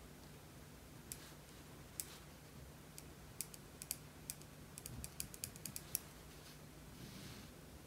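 Ballpoint pen on paper while drawing a diagram: a scatter of light ticks, thickest in the middle, and a brief scratch of a pen stroke near the end, over a faint low hum.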